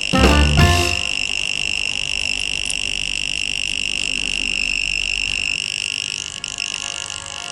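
Non-contact voltage tester's piezo buzzer sounding one continuous high-pitched tone, the alert it gives when it senses live voltage. Loud music plays in the first second before the tone is left on its own.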